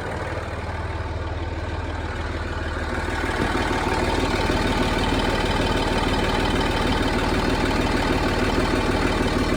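A Land Rover Discovery 3's 2.7-litre TDV6 V6 diesel is idling after a cold start, with a louder ticking, clacking clatter over the engine note. The sound grows louder about three seconds in.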